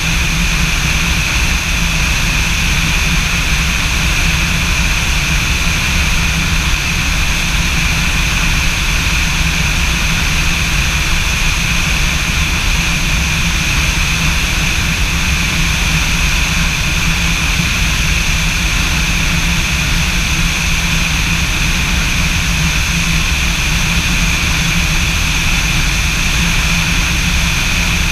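Light aircraft's engine and propeller running steadily in flight: a constant low drone with a steady high whine over it, unchanging throughout.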